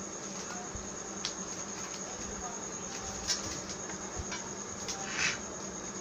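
A steady faint high-pitched whine over a low hum, with a few light clicks and a short rustle about five seconds in as the plastic laptop charger brick is handled.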